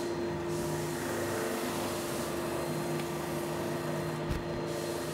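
Steady mechanical hum and hiss of a running workshop machine, with a single soft knock about four seconds in.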